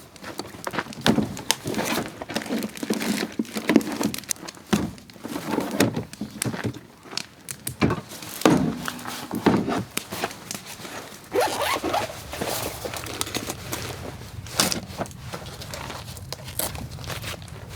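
Firewood being handled: irregular knocks and thunks as pieces are set down and shifted, with crunching and crinkling in between.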